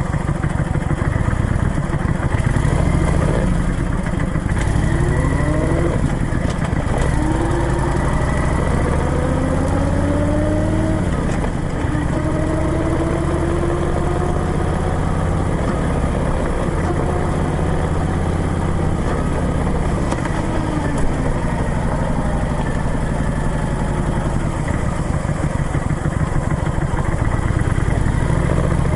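Motorcycle engine on the move, its pitch climbing and dropping back several times as it accelerates up through the gears, then running more steadily at cruising speed.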